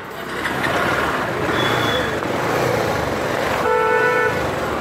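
Steady street traffic noise, with a vehicle horn sounding once for about half a second near the end.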